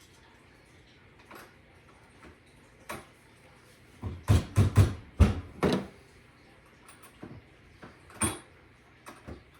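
A run of loud knocks and thuds, about six in quick succession in the middle and one more sharp knock near the end, with lighter clicks between: a dishwasher being worked back into place under a countertop.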